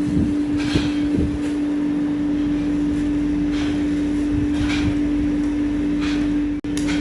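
Workshop machinery running with a steady electric hum, with a few faint scrapes and clinks of metal work over it.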